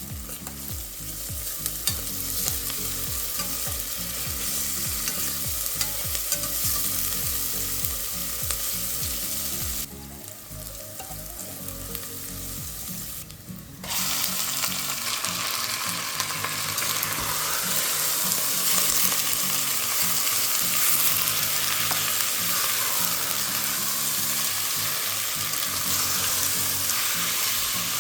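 Food sizzling as it fries in hot oil in a pressure cooker. The sizzle thins out about ten seconds in, then comes back louder a few seconds later.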